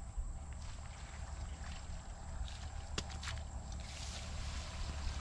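Water sloshing and lapping around a person wading waist-deep and groping among lakeside weeds, over a low wind rumble on the microphone. Two sharp clicks come about three seconds in, and the splashing grows busier near the end.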